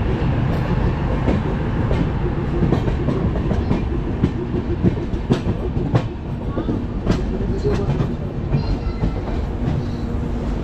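Wheels of a moving passenger train's coach running over rail joints and points. A steady rumble is broken by sharp, unevenly spaced clicks and clacks, heard through an open coach door.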